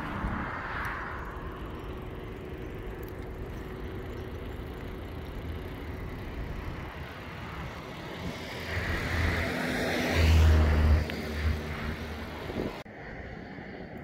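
A motor vehicle passing close by on the road: its engine and tyre noise build from about eight seconds in and are loudest around ten to eleven seconds, over a steady bed of road and outdoor noise. The sound cuts off suddenly near the end.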